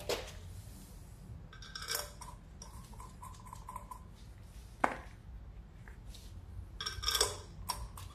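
Metal tools and parts clinking and knocking: a few separate sharp taps and two short clattering spells with a metallic ring, about two seconds in and again about seven seconds in.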